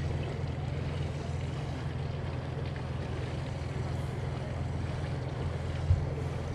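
Steady low rumble and wind on the microphone aboard a small boat on the water, with a single knock about six seconds in.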